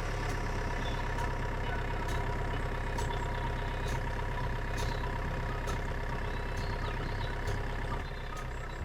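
Engine running steadily at idle with a low, even throb.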